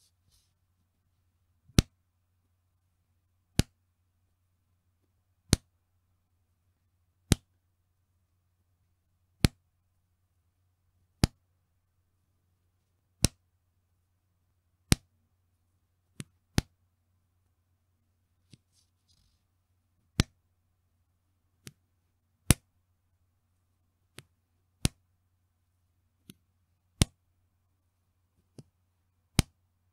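Bra elastic snapping back against skin, one sharp slap at a time, about every two seconds. From about halfway on, softer snaps come in between the loud ones. A faint low hum runs underneath.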